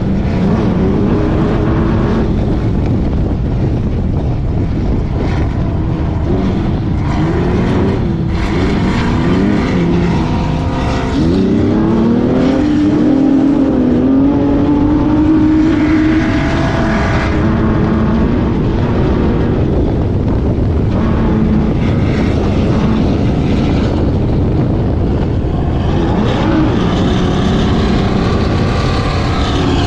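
Engine of a Sportsman Unlimited Class 1500 off-road race car running hard, heard from inside the car. Its pitch climbs and falls as it revs up and down, with a sharp rise and a step up in loudness about eleven seconds in, over a constant noisy rumble.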